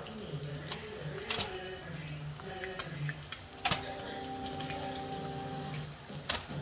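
Breaded fish fillets sizzling in hot oil in a frying pan, with a few sharp clicks of a metal utensil against the pan as the fillets are turned and lifted out.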